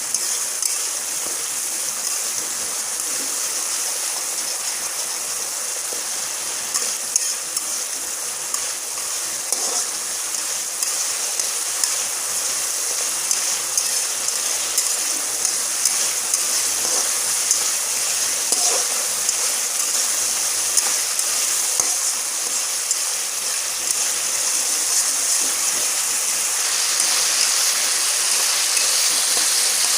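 Onion and spice masala sizzling in hot oil in a pan, a steady hiss with occasional sharp ticks as it is stirred and fried down.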